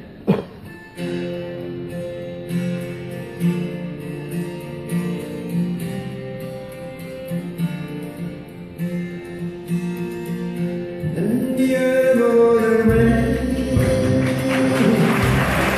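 Live acoustic guitar picking a steady, evenly plucked pattern, with a single sharp click just after the start. About eleven seconds in, a male voice begins singing and an electric bass guitar joins, and the music grows fuller and louder.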